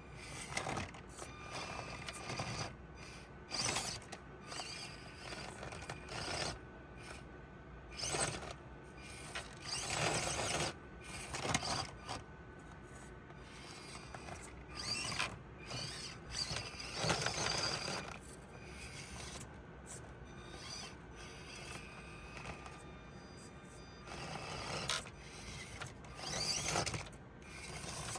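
Box-stock Axial SCX24 Deadbolt micro RC crawler driving in irregular bursts, its brushed motor and gears whirring as it scrabbles and scrapes over the course surfaces.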